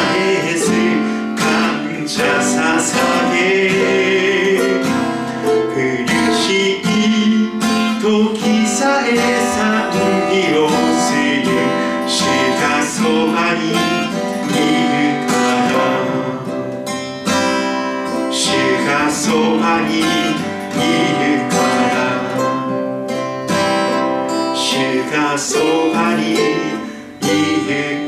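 Acoustic guitar strummed steadily, playing an instrumental passage of a hymn accompaniment.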